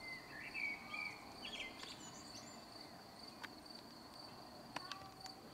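Outdoor evening ambience: a steady, high-pitched insect trill like a cricket's, with a bird chirping a few times in the first two seconds over a faint background hum of noise.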